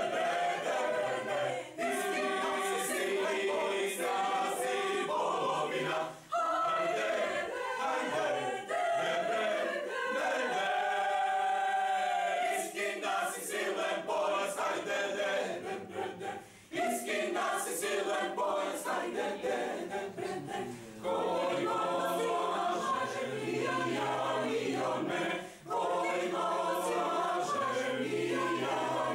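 Mixed choir of men's and women's voices singing a cappella in several parts. The singing comes in phrases with short breaks between them, and a chord is held for a few seconds about ten seconds in.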